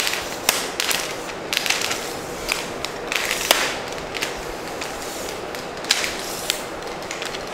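Simpex VCT-691RM tripod being unfolded by hand: legs spread and extended, with a sharp click or clack from the flip-lock leg clamps and sections about once a second and faint sliding and rattling between.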